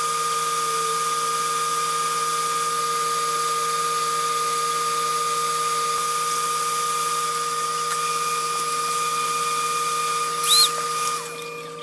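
An electric bench fan runs with a steady whine over a hiss of moving air. It has just spun up and winds down about eleven seconds in. A brief loud chirp comes shortly before it winds down.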